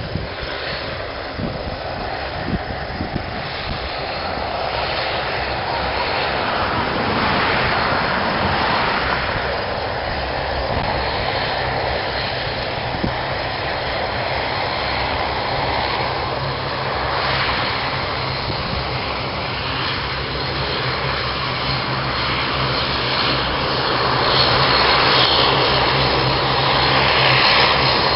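A Bombardier Dash 8 Q400 turboprop airliner running its two Pratt & Whitney PW150A engines and six-blade propellers while it taxis. The steady drone grows gradually louder as the aircraft comes closer.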